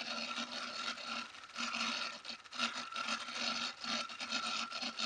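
Faulty laptop cooling fan making a vigorous noise: a steady tone under a rough noise that swells and fades unevenly several times. The owner reckons the fan is loose.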